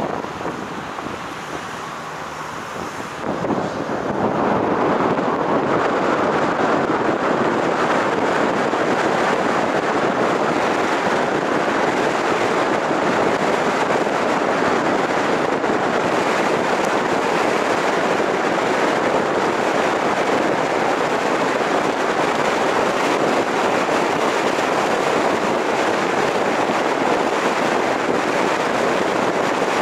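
Steady wind and road noise from a car driving, picked up by a camera mounted on the car. It grows louder about three and a half seconds in as the car gets up to speed, then holds level.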